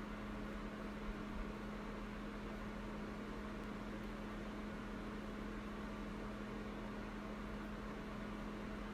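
Steady mechanical hum: one constant low tone over an even hiss.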